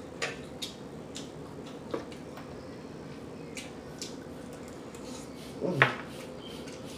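Someone eating close to the microphone: scattered short clicks of chewing and mouth smacking, with a brief vocal sound about six seconds in.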